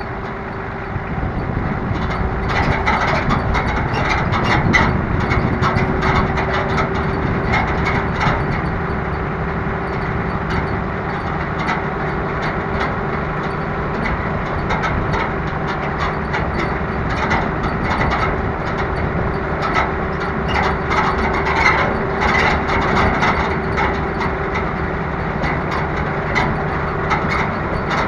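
Small off-road vehicle driving over a rough dirt track: its engine runs steadily, with a held engine tone, while the frame and rack rattle and knock over the bumps.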